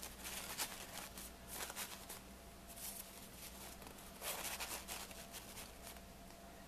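Soft, irregular rustling and crinkling of thin paper beverage napkins as their pleated layers are pulled out, with a louder rustle about four seconds in, over a faint steady hum.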